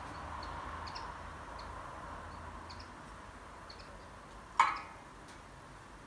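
Half-filled wine glass: the last of its rim-rubbed singing tone dies away, then, a little past halfway, one sharp clink on the glass rings briefly. Faint bird chirps throughout.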